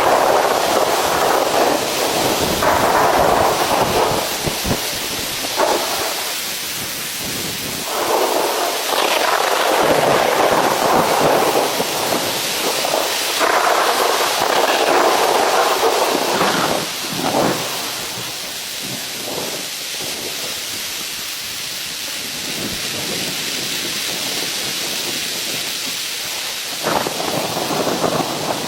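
Heavy rain pouring down with a steady hiss, swelling into louder, denser surges every few seconds.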